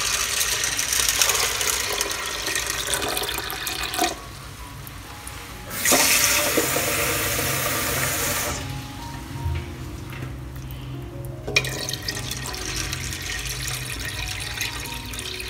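Lime water poured from a stainless steel bowl onto dried corn kernels in a steel pot, a splashing stream in three pours with short pauses between, decanted slowly so the grit settles out and stays in the bowl.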